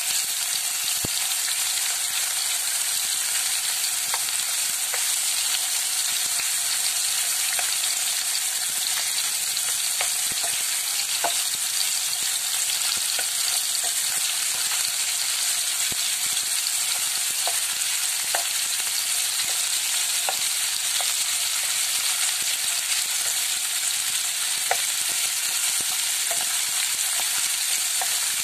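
Chicken pieces and garlic frying in a non-stick wok with a steady sizzle, stirred with a wooden spatula that clicks and scrapes against the pan at irregular moments.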